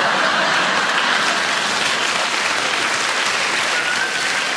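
Live audience applauding steadily in response to a comedian's punchline.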